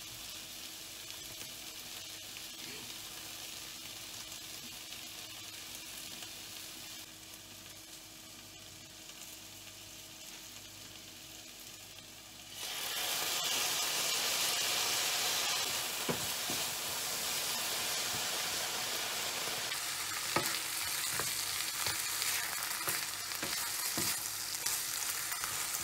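Meat and onions sizzling in a hot frying pan. About halfway through the sizzle suddenly gets louder as red pepper sauce goes into the pan, and then a spatula scrapes and taps against the pan as the stir-fry is stirred.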